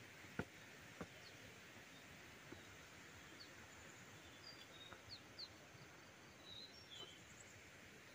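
Near silence: faint outdoor background with scattered short, high bird chirps in the middle and a couple of soft knocks in the first second.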